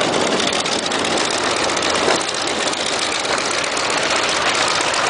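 Jet trainer aircraft's engine running steadily: a continuous even rushing noise.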